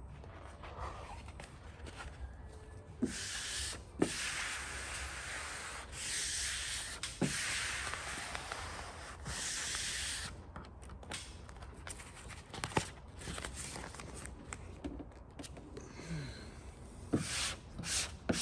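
A soft felt-edged squeegee rubbing and scraping across an air-release vinyl wrap sheet as it is pressed down onto the hood, in long sweeping strokes. Near the end come quicker short strokes, about three a second.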